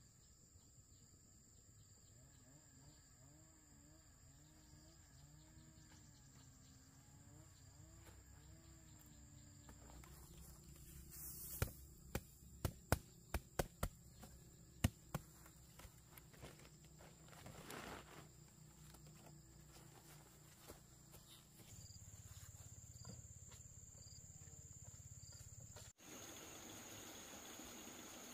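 Faint, steady high-pitched insect trilling in the background. A quick run of sharp clicks or knocks comes about halfway through.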